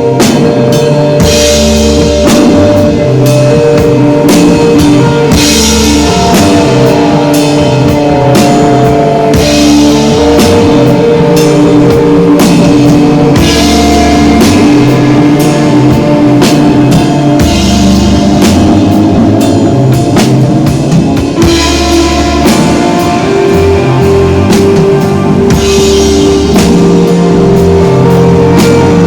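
Instrumental desert rock played live by a band: drum kit with cymbals keeping a steady beat under a bass line and electric guitar holding long notes, with the guitar sliding in pitch about a quarter of the way in.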